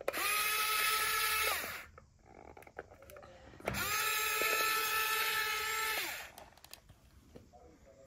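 Small electric motors of a YIGONG remote-control excavator whining as it is driven, in two runs of about two seconds each; the pitch climbs as each run starts and drops away as it stops.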